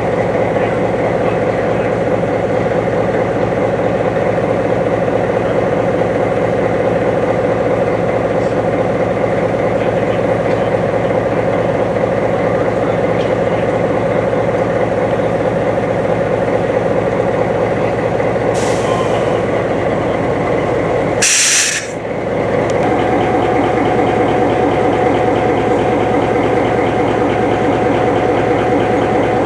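Heavy engine idling steadily, with a short, sharp hiss of compressed air released about two-thirds of the way through, like an air brake venting.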